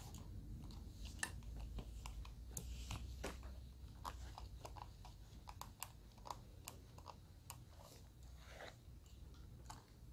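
Comb, clips and a flat iron working through sections of hair during the pressing stage of a magic straight perm: faint, irregular small clicks and crackles over a low steady hum.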